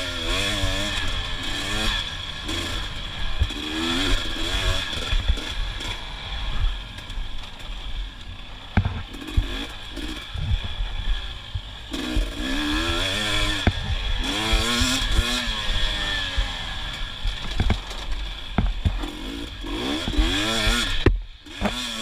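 KTM 250 XC TPI two-stroke dirt bike engine revving up and down over and over as the rider works the throttle over rough ground, with scattered sharp knocks and clatter from the bike. The throttle is shut briefly near the end, then the engine picks up again.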